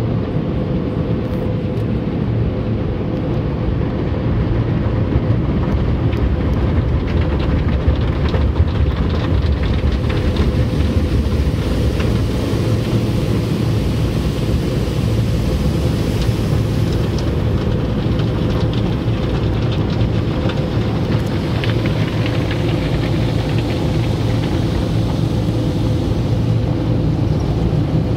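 Automatic car wash heard from inside the car's cabin: water spraying and cloth brushes washing over the windshield, over a steady low rumble with a constant hum.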